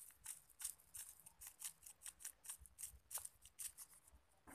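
Faint, quick crinkly ticks and rustles, about four or five a second, of a plastic seasoning sachet being shaken as its powder is sprinkled onto crisp fried grasshoppers.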